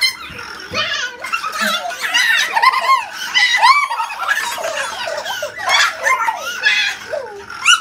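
A group of children and women laughing and squealing excitedly, with high-pitched overlapping voices and short shouts.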